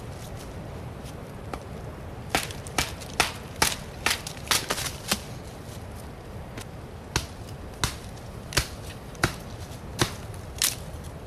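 A large bushcraft knife chopping and splitting small wood against a log chopping block: sharp wooden knocks, first a quick flurry of about eight, then a steady run of six strikes about two-thirds of a second apart.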